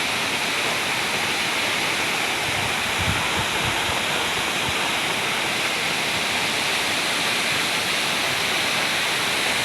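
The Geg waterfall's falling water, a steady, unbroken rush.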